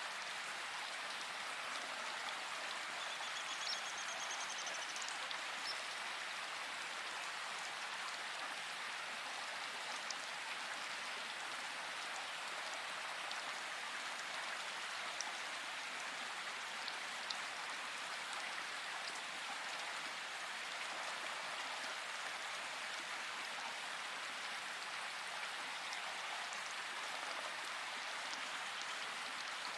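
Steady rain falling in a forest: an even hiss of drops with a few sharper drip ticks. A brief high trill sounds about three seconds in.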